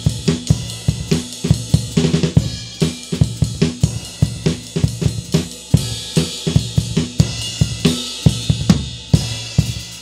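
Acoustic drum kit played alone in a steady rock groove: kick drum, snare and hi-hat, with cymbal crashes now and then.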